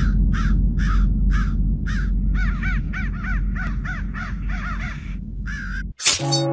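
Crows cawing, first about two caws a second and then a quicker run of wavering calls, over a low rumbling drone. Near the end a sharp hit cuts in, followed by a ringing, bell-like tone.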